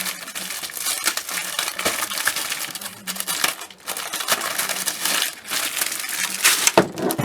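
Packaging crinkling and crackling as an item is pulled out of its wrapping, with an irregular run of small crackles and rustles.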